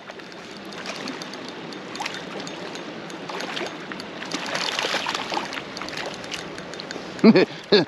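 Rushing stream water with irregular splashing, louder in the middle, as a hooked rainbow trout is played and netted at the water's edge. A couple of short vocal exclamations near the end.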